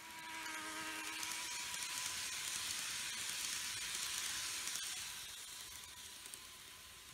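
N-gauge model Shinkansen (TOMIX E3 series Komachi) running past on its track: a small electric motor's buzz and the hiss of wheels on rail, growing louder as it approaches and fading as it moves away, with a single click about five seconds in.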